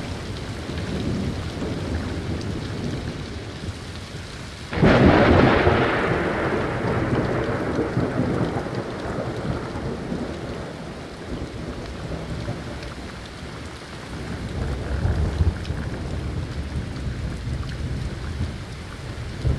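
Thunderstorm: steady rain with a sudden loud thunderclap about five seconds in that rumbles away over several seconds, and a lower roll of thunder later on.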